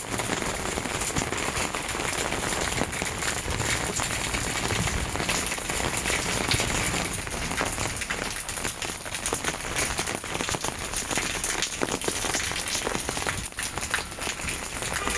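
Heavy rain falling steadily, a dense hiss speckled with many sharp drop impacts.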